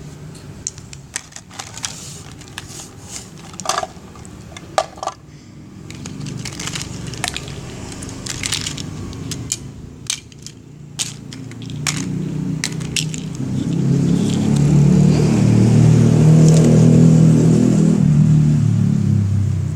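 Scattered sharp clicks and small rattles of things being handled, then a passing motor vehicle: a low rumble that swells to its loudest about two thirds of the way in and fades near the end.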